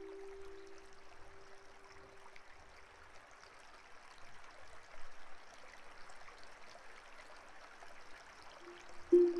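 Running water, a steady rush, while a held musical note dies away over the first few seconds; a sharp new note strikes near the end.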